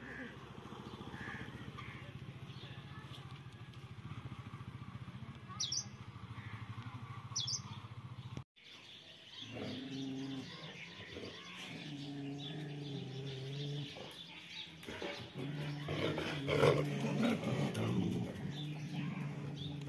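A motorcycle engine running steadily, with two short bird chirps over it about six and seven and a half seconds in. The sound breaks off about eight seconds in. A low droning hum follows that starts and stops, with scattered bird chirps.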